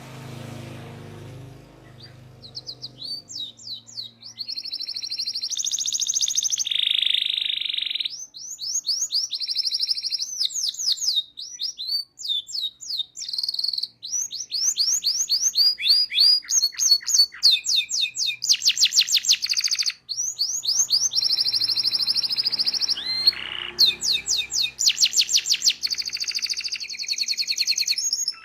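Domestic canary (local Indonesian kenari) singing a long, unbroken rolling song of rapid trills and repeated notes, starting about two and a half seconds in, after a faint low hum.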